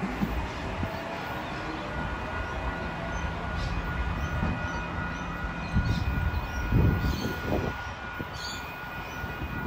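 Sydney OSCAR H-set electric multiple unit pulling out of the station and moving away, its traction motors giving a steady whine of several held tones over a low rumble. A few low thumps come about six to seven seconds in.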